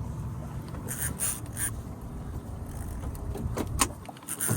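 Steady low rumble of a boat at sea, with a few short scraping sounds about a second in and two sharp knocks near the end.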